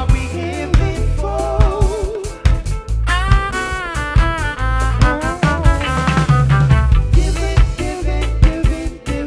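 Live band playing an improvised groove: drum kit and bass guitar keep a steady beat while a lead instrument plays a wavering, sliding melody line.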